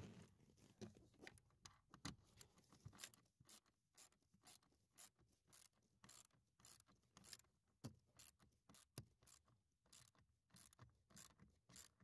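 Faint, irregular clicking of a ratchet wrench's pawl, a couple of clicks a second, as it tightens a blower motor's mounting screws into their plastic housing.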